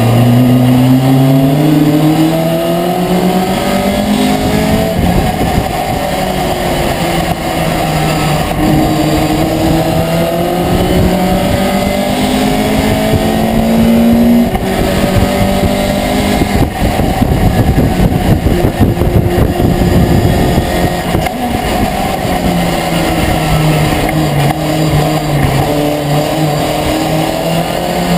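Race pickup truck's engine heard from inside its cab at racing speed. Its pitch climbs steadily through the first half, drops sharply about halfway through, goes rough for a few seconds, then settles back into a steady pull near the end.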